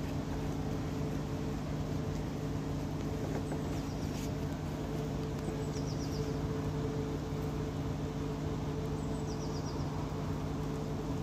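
A steady low mechanical hum with a few short, high chirps now and then.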